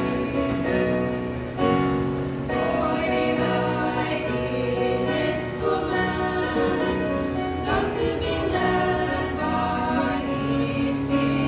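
Three women singing a hymn together, holding long notes.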